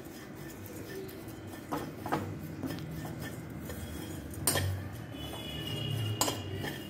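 Metal spoon stirring and scraping dry-roasted oats around a hot non-stick pan, the flakes rustling, with a few sharp clinks of the spoon against the pan. The loudest clink comes about four and a half seconds in.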